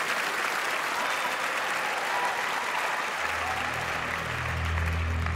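Concert audience applauding, the applause fading toward the end as a low held musical note begins about three seconds in.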